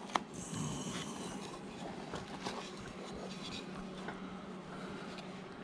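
Carving knife cutting into a hard wood blank: short, scratchy slicing and scraping strokes, with a sharp crack of a cut just after the start. A low steady hum runs underneath.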